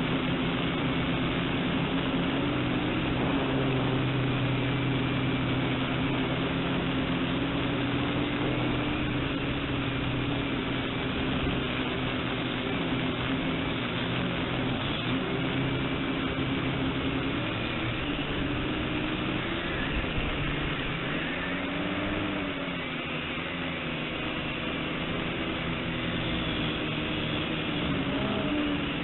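XK X250 quadcopter's motors and propellers buzzing in flight, the pitch drifting up and down with the throttle.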